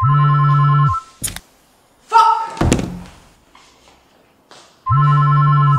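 A mobile phone ringing on a table: two one-second rings with a buzzing tone, about five seconds apart. Between the rings there is a sharp click and then a thunk.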